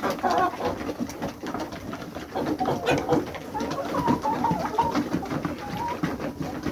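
A flock of chickens calling, with short wavering calls over many short ticks.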